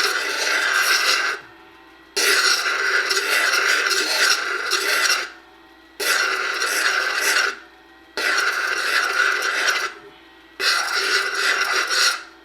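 Turquoise cabochon pressed against a spinning wet polishing pad charged with 14,000 mesh diamond compound: a rubbing, scraping hiss in repeated passes of one and a half to three seconds, each broken by a short pause as the stone is lifted and repositioned, five passes in all.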